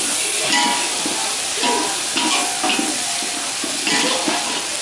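Whole eggs frying in a wok of hot oil and spices, the oil bubbling and sizzling steadily.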